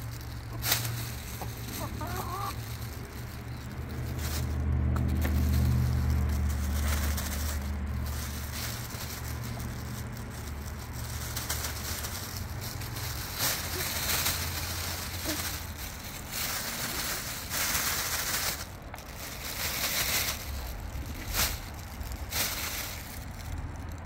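Barred Rock hens clucking softly while they peck at scattered rice, with scattered short clicks. A low rumble runs through the first half and is loudest about five seconds in.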